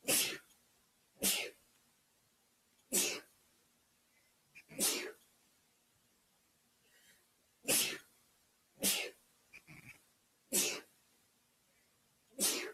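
A run of eight sneezes, one every one to two seconds, with faint short sounds just before a couple of them. They come from irritation by dust and a Christmas tree.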